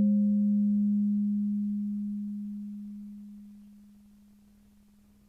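The fading tail of a single low struck bell-like tone. The higher overtones die away within the first two seconds, and the low ring fades to near silence about four seconds in.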